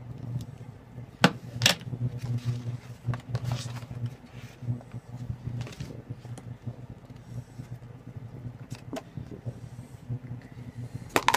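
Groceries being handled and set down on a stainless steel counter: a few sharp knocks and clicks, two close together about a second and a half in, one more later and a quick clatter near the end, over a steady low hum.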